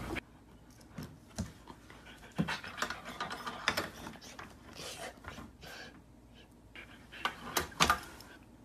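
A dog panting, with irregular short taps and scuffs of movement on a wooden floor. The loudest bursts come near the end.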